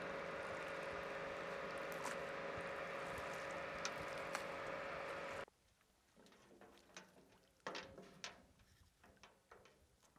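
A steady hum with a few faint clicks, which cuts off sharply about five and a half seconds in. After that come faint scattered drips, splashes and light knocks as a wet gill net is hauled by hand into a wooden rowboat.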